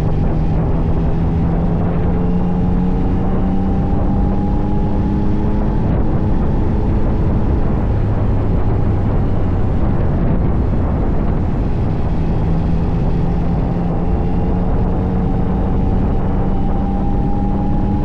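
Yamaha Tracer 9's 890 cc inline-three engine running on the move, its pitch climbing slowly, easing back about halfway through, then climbing again near the end, over a steady rush of wind and road noise.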